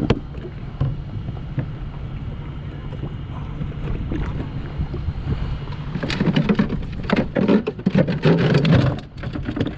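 Wind buffeting the microphone over water lapping at the jet ski's hull, with a few light taps as bait is cut on the plastic cooler lid. About six seconds in there is a louder stretch of quick knocks and clatter that lasts about three seconds.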